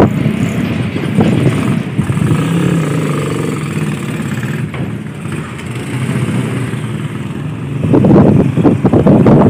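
Motor scooter engines running as the scooters ride past, the engine pitch wavering up and down. A louder rush of noise comes in near the end.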